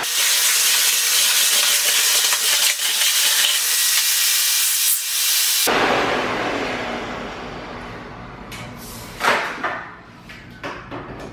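Miele Complete C3 canister vacuum running at full suction, a loud steady rush of air. About six seconds in it is switched off and the motor winds down, fading over a few seconds. A few sharp knocks follow as the wand is handled.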